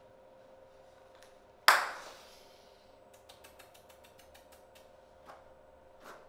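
A single loud, sharp knock or bang with a short ringing tail, followed a second later by a quick run of faint clicks, about eight a second, and two more lone ticks, over a steady faint hum.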